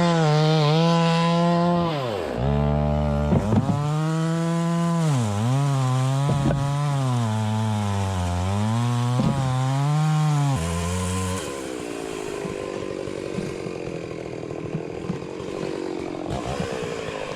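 Stihl two-stroke chainsaw cutting jarrah firewood: the engine runs at high revs, its pitch dipping and recovering as the chain bites into the wood. About ten seconds in it falls to a lower, quieter running.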